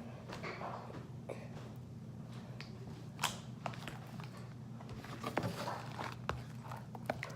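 A large jiggly glitter slime being squished and pulled by hand: soft squelches with scattered sharp clicks and pops, over a steady low hum.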